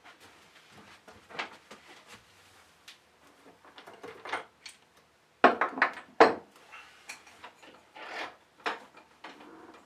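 Irregular knocks and clatters, as of hard objects being handled and set down, with the two loudest sharp knocks about halfway through.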